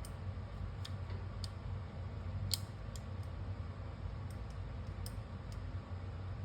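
Scattered light clicks and taps of small screws and the LED circuit board being handled and fitted into the cooktop frame, one or two a second, the loudest about halfway through. A steady low hum runs underneath.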